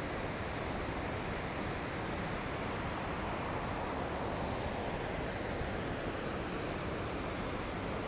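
Steady rushing noise, even throughout, with no distinct events.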